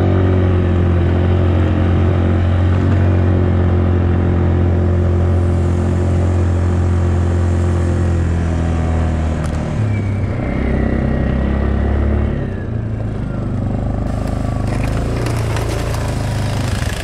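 2007 Yamaha Kodiak ATV's single-cylinder engine running steadily under load while its front blade pushes snow. The engine note shifts about ten seconds in and dips briefly a couple of seconds later.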